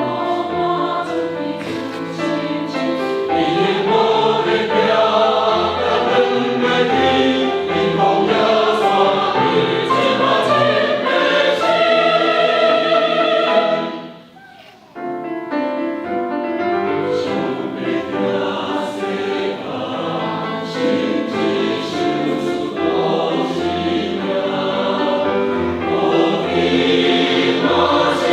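Church choir singing a hymn in harmony, with a short break in the sound about halfway before the singing comes back in.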